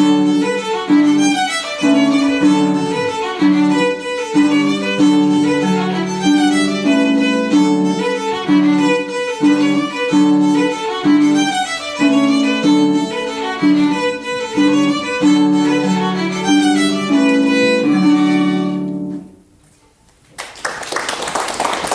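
Violin playing a fast Irish reel with quick running notes over sustained lower notes; it stops abruptly about 19 seconds in. After a second's pause, applause starts.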